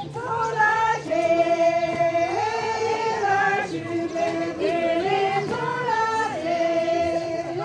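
Group of women singing a Tibetan circle-dance song together in unison, a melody of long held notes that step up and down.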